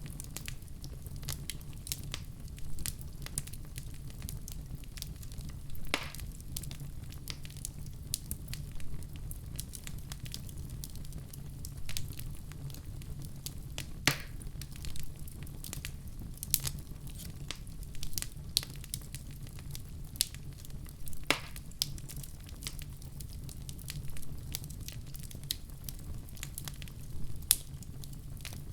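Wood fire in a fireplace crackling, with irregular sharp pops, a handful louder than the rest, over a steady low rumble of the flames.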